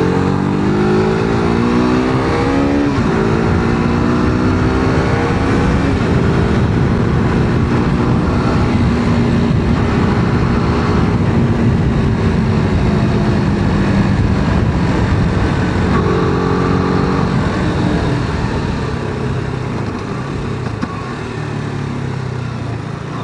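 KTM RC motorcycle's single-cylinder engine accelerating up through the gears. The pitch climbs, drops at a shift about three seconds in, climbs again and holds at a steady cruise, with another rise and shift about sixteen seconds in.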